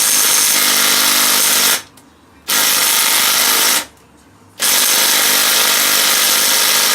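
DeWalt DCF813 10.8 V 3/8-inch cordless impact wrench hammering on a wheel nut in long runs, stopping briefly twice and going again. The nut does not come undone: the little 3/8 wrench is not strong enough for wheel nuts.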